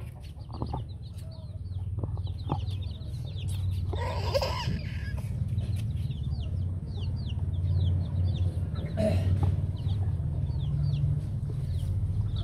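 A cage full of young chicks peeping constantly: many short, high cheeps, each sliding downward in pitch. A louder call stands out about four seconds in and another near nine seconds, over a steady low rumble.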